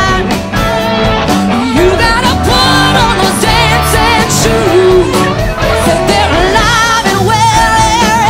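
Live rock band playing: a singer holding wavering, vibrato notes over electric guitars and drums.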